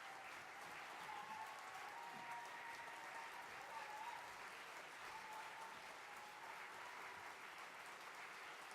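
Theatre audience applauding steadily, with a few faint voices or calls riding over the clapping.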